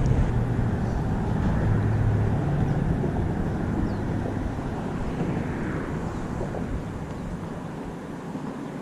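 A steady low engine drone with a noisy rush, slowly fading away.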